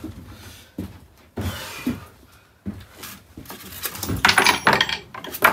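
Small objects being handled on wooden shelves: a few separate knocks, then a louder rattling clatter with metallic clinks about four seconds in.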